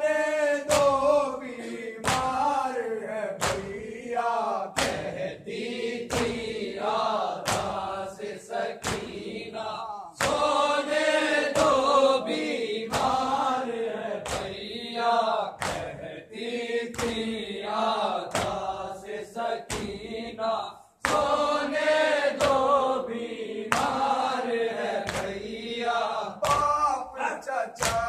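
Men chanting a noha, a Shia lament, together, with sharp rhythmic chest-beating (matam) slaps keeping the beat a little over once a second. The chant and slaps break off briefly about three quarters of the way through, then resume.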